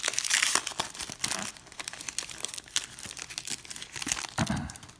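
Wrapper of a trading card pack crinkling and tearing as it is opened by hand, a dense crackle loudest in the first second or so.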